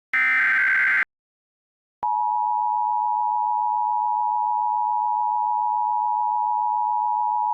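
Emergency Alert System tones: the last one-second SAME header data burst, a harsh buzzing screech, then a second of silence. About two seconds in, the steady two-tone attention signal starts and holds.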